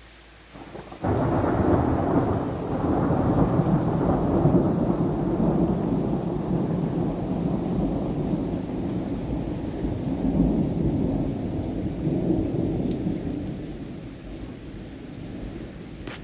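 A thunderclap breaks suddenly about a second in, then a long rumble of thunder follows and slowly fades over the next twelve seconds or so.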